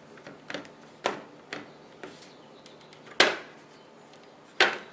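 A handful of sharp clicks and knocks as a small metal pie tin is handled on a wooden cutting board while a clay crust is pressed around its rim. The loudest knock comes about three seconds in, with another strong one near the end.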